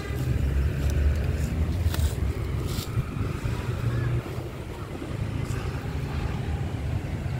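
Low, steady rumble of a working excavator's diesel engine, with a couple of light knocks about two and three seconds in.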